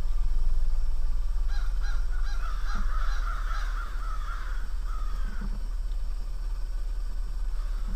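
Homemade mini buggy's small motorcycle engine running as the buggy drives along, growing louder for a couple of seconds about two seconds in.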